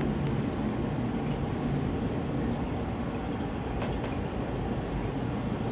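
Domestic cat purring steadily right at the microphone, a continuous low rumble, with one faint click about four seconds in.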